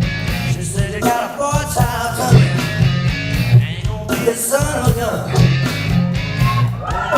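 A woman singing a rock and roll song over guitar-led backing music with a steady, pulsing beat.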